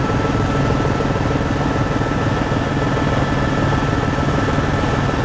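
Helicopter engine and rotor heard from inside the cabin: a steady loud drone with a fast low beat from the blades and a thin constant whine above it.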